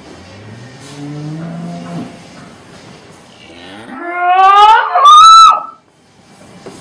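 Cow mooing twice: first a low moo rising slightly in pitch, then, about four seconds in, a much louder call that climbs steeply to a high pitch before breaking off.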